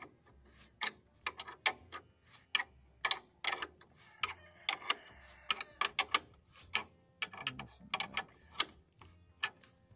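Steel wrench tightening a nut on a threaded rod, giving irregular sharp metal clicks about two or three a second as the wrench works the nut. The nut is being snugged down past finger tight to lock the motor platform that sets the drive belt's position.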